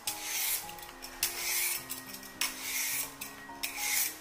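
Metal Y-peeler scraping strips of skin off a raw carrot: four rasping strokes about a second apart.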